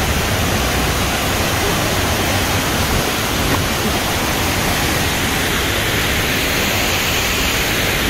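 A 63 m twin waterfall crashing into its pool: a steady, loud rush of falling water that does not change.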